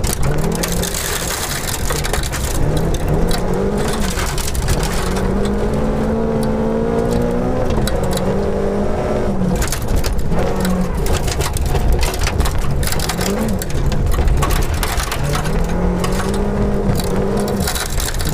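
Volvo 242 rally car heard from inside the cabin at full speed on gravel: the engine revs climb, break off at gear changes and climb again, over a constant rattle and clatter of loose stones thrown against the underside of the car.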